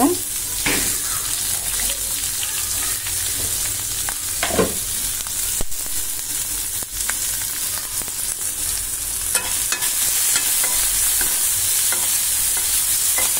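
Chopped onion and green chillies sizzling in hot oil in a nonstick kadai, with scattered small pops and ticks. A spoon stirs them, scraping the pan now and then.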